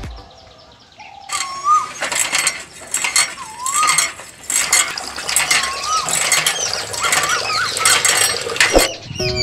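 Miniature hand water pump being worked by hand: its handle and plunger click and rattle over and over, starting about a second in, with a few short rising-and-falling squeaky chirps among the clicks.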